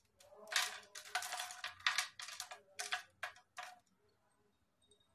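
Finely chopped cashews and almonds scattered by hand into a butter-paper-lined aluminium tray, the pieces pattering and clattering down in a quick run of bursts that stops about four seconds in.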